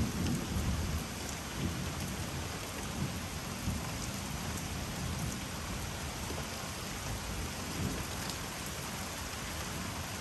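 Steady rain falling in a thunderstorm, with a clap of thunder right at the start that rumbles on for about a second before fading into the rain.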